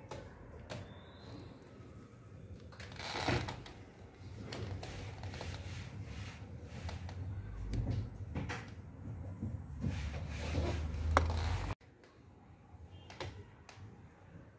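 Handling noise from hands turning over burnt wires and a plastic wall-outlet frame: scattered clicks and rustles, with a low rumble on the microphone that cuts off suddenly near the end.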